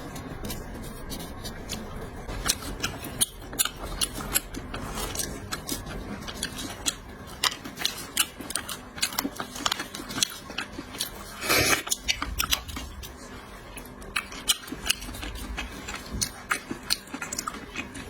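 Close-up eating sounds of seafood: irregular sharp clicks and crackles of shells being cracked and chewed, with one longer, louder crunch about two-thirds of the way through.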